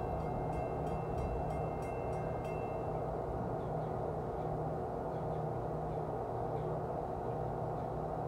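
Steady low outdoor rumble, with faint regular ticking during the first couple of seconds.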